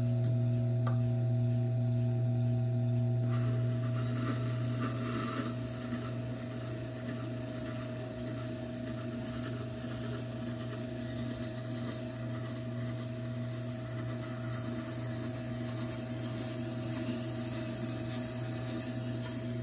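Tormek T4 wet grinder's motor humming steadily while the blade of a Maxam hunting knife is ground against its turning stone. The rasp of steel on stone sets in about three seconds in and goes on steadily as the edge is worked to raise a burr.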